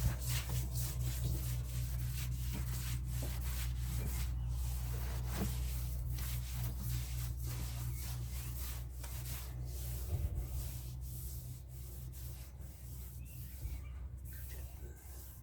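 Hand sanding of body filler on a car's rear wheel arch panel, in repeated irregular rasping strokes, over a steady low hum.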